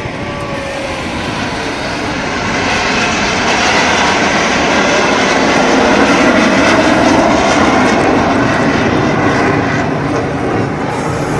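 A formation of aerobatic display jets flying past: a steady jet rush that builds to a peak around the middle and then fades as they go by.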